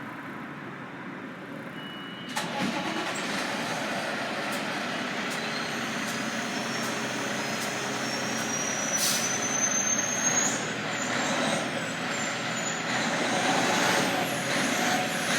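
Fire ladder truck running on the road, its engine noise stepping up about two seconds in and growing louder as it gets under way. A thin rising whine sits above it in the middle of the stretch.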